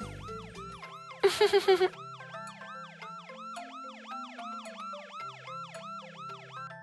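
A cartoon fire engine siren sweeps up and down quickly, about three sweeps a second, over a soft bass line of background music. About a second in, a short loud buzzing burst of five quick pulses cuts across it.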